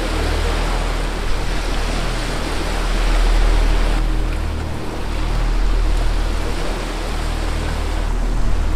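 Small sea waves washing over a rocky shoreline: a steady rush of surf that swells and eases, with a deep rumble underneath.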